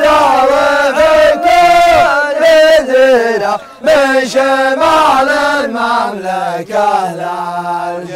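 Group of men chanting an Arabic song together in one voice, in long held notes that slide up and down in pitch. It grows softer over the last couple of seconds and settles on one long low note.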